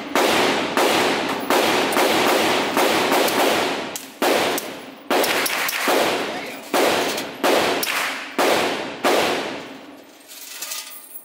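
A suppressed pistol fired in a rapid string of about twenty shots, roughly two a second and unevenly spaced, each shot echoing in an indoor range. The firing stops about ten seconds in.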